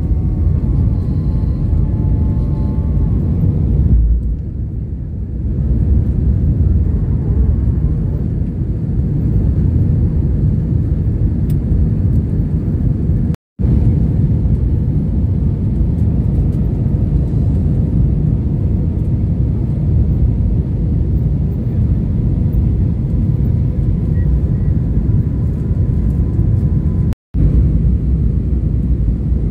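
Cabin noise of a jet airliner in its climb after takeoff: a loud, steady rumble of engines and airflow. The sound cuts out abruptly twice, for a split second each time.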